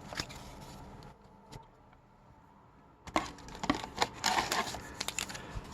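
Hockey trading cards and pack wrappers being handled on a table: faint rustling, a quiet pause, then from about three seconds in a run of small clicks, taps and crinkles.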